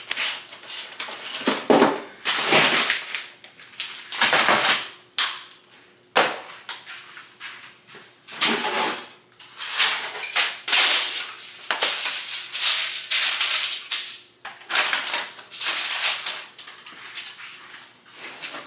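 Food packaging being handled: plastic bags crinkling and cardboard boxes rustling and being set down, in a string of short bursts, over a faint steady hum.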